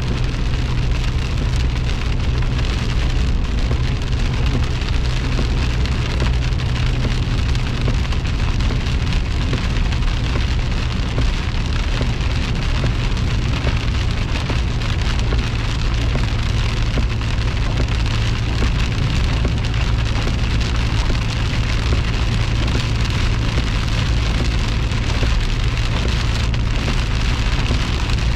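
Heavy rain hitting a moving car's windshield and roof, heard from inside the cabin, over a steady low drone of engine and tyres on the wet highway.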